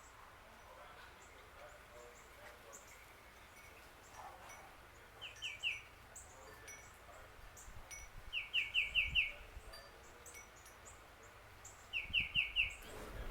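Wild birds calling: one bird repeats a quick run of four or five clear notes three times, about every three to four seconds, while other birds give short, high chirps.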